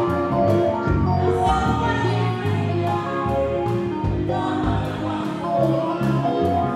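Live gospel music: a woman singing into a microphone over keyboard, bass and a drum kit keeping a steady beat.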